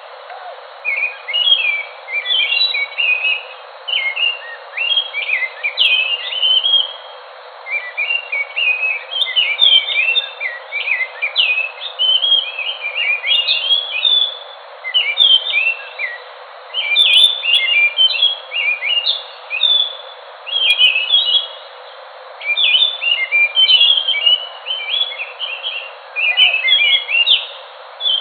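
Anis thrush singing, a fast, varied warbling song of quick chirps and short slurred notes in phrases of one to two seconds, separated by brief pauses, over a steady hiss.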